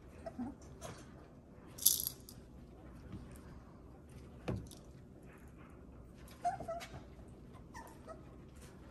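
Four-week-old Bordoodle puppies making short squeaks and whimpers amid scattered clicks, knocks and rustling. A sharp clatter about two seconds in is the loudest sound.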